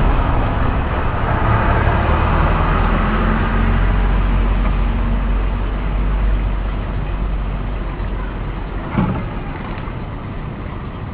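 A motor engine runs steadily, then slowly fades. A short knock comes about nine seconds in.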